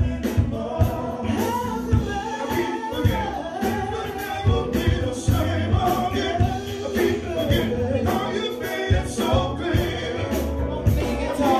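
Live band playing a song, with a woman singing lead and several voices singing together over keyboard and a steady drum beat of about two hits a second.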